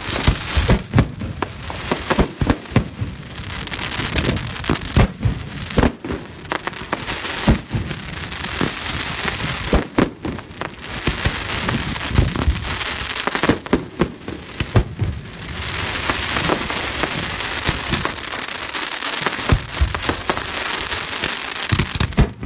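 Fireworks going off: a rapid, irregular string of sharp bangs over a continuous dense crackling hiss, the crackle thickening in the second half.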